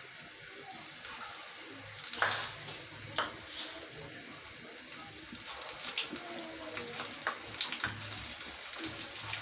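Gram-flour batter pakoras deep-frying in hot oil: a steady sizzle full of small crackles and pops, with louder bursts of crackling about two and three seconds in.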